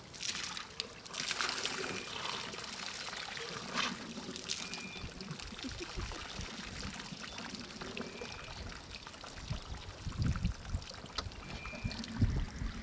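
African elephant with a shortened, damaged trunk pouring water from its trunk into its mouth, splashing and trickling, with the most splashing in the first few seconds. A few low thumps come near the end.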